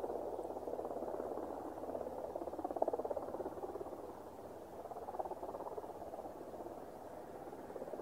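Mitsubishi F-2's F110 turbofan running at low power as the jet taxis after landing: a steady, rough rumble that swells and fades in slow waves.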